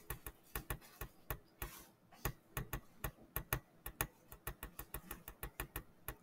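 Rapid, irregular light clicking, several clicks a second, with uneven gaps between them.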